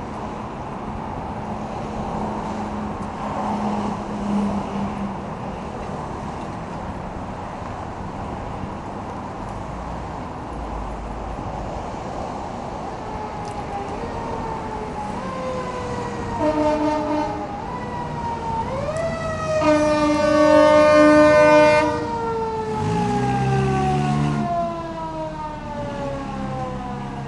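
Emergency vehicle siren arriving over steady street traffic noise: from about halfway through, a wailing siren sweeps up and down in pitch, a loud steady blast sounds about three-quarters of the way through, and the wail then falls slowly in pitch to the end.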